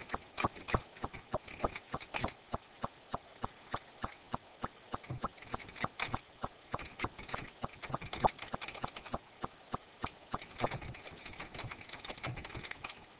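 Computer keyboard typing: a long run of quick, unevenly spaced key clicks, a few a second.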